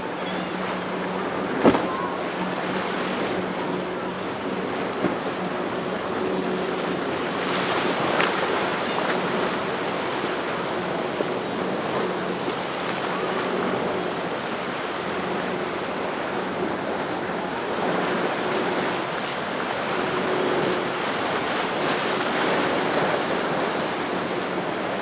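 Waves and rushing water with wind on the microphone, under a faint steady drone of a boat engine. There is one sharp knock about two seconds in.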